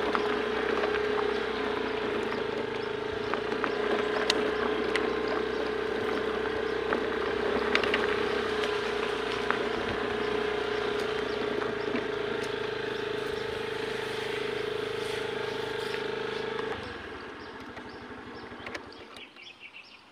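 A motor running with a steady hum and a few faint clicks, which cuts off about seventeen seconds in, leaving quieter background noise.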